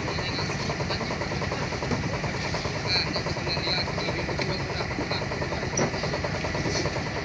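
Engine idling steadily with a fast, even low throb.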